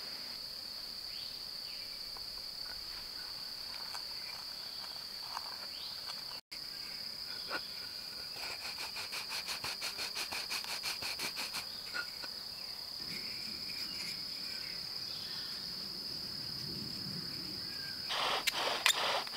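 Insects droning steadily at one high pitch. A fast pulsing trill joins for a few seconds in the middle, and a quick run of sharp clicks and taps starts near the end.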